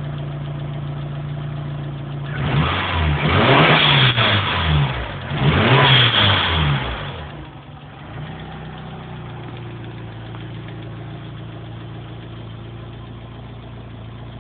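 Mitsubishi 4G63 inline-four engine idling, revved twice in quick succession, then settling back to a steady idle. The owner calls it a bad noise but cannot identify its cause.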